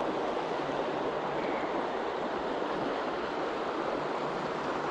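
Shallow river flowing steadily over a rocky riffle: an even rushing of water.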